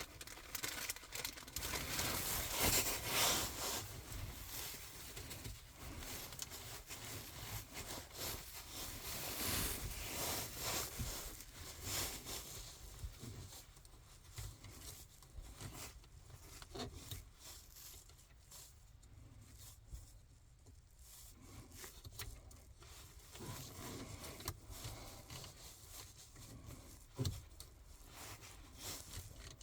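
Faint rustling, wiping and small scrapes of hands with a wipe working around the dashboard radio's volume knob, cleaning off excess WD-40. The rustling is busiest in the first dozen seconds and thins out after that.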